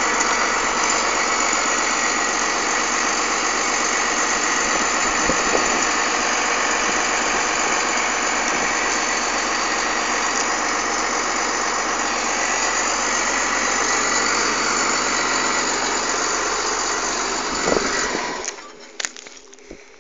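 Tigercat grapple skidder's diesel engine idling steadily, then falling away sharply near the end.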